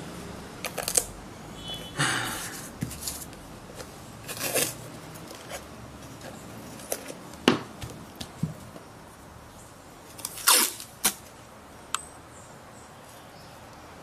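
Masking tape pulled off its roll and torn, then pressed and smoothed onto a cement pot: a string of short rips and crackles, the longest peel about two seconds in and the loudest rip around ten and a half seconds.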